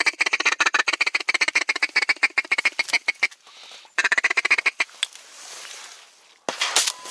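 Ducks quacking in a rapid chattering run that breaks off about three seconds in and comes back briefly about a second later. Near the end, a sharp crack of a shotgun shot.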